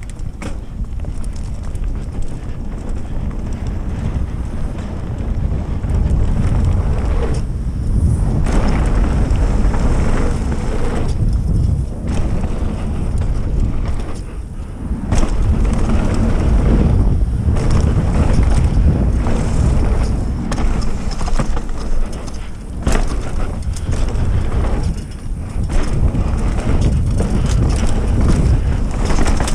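Mountain bike ridden fast down a dirt trail: heavy wind rush on the camera microphone over tyre noise on dirt, with knocks and rattles of the bike over bumps. The noise dips briefly several times.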